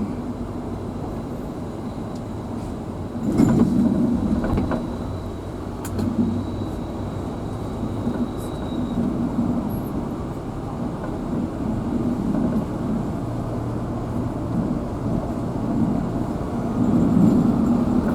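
A vehicle driving along, its engine and road noise heard from inside as a steady rumble, with a few knocks from bumps, the loudest about three seconds in.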